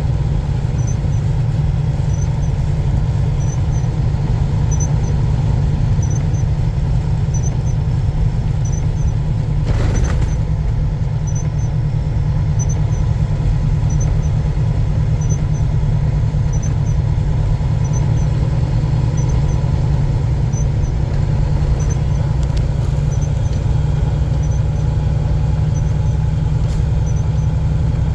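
Steady low drone of a semi truck's engine and road noise, heard from inside the cab, with a faint high tick repeating a little faster than once a second. A single short knock comes about ten seconds in.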